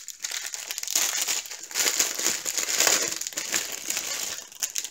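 Clear plastic packaging crinkling and rustling as hands handle a bag of diamond painting drill packets, with irregular crackles.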